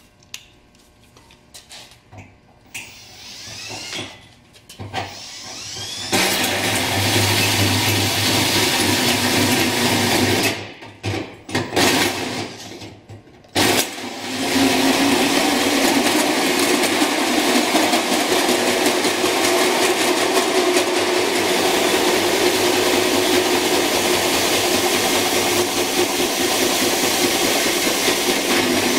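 Cordless drill driving a 4.5-inch hole saw through a sheet-metal fender, cutting steadily. It starts about six seconds in, stops and restarts in short bursts, then runs on without a break for the second half.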